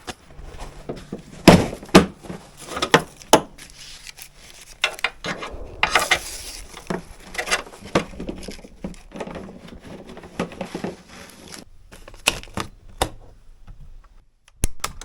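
A run of irregular knocks, clicks and clinks, like gear being handled, loudest about one and a half and two seconds in.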